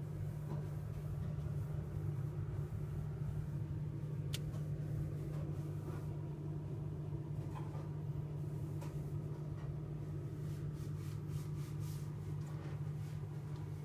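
Freezer-refrigerator running with a steady low hum, with a few faint sharp clicks and ticks over it, mostly in the second half.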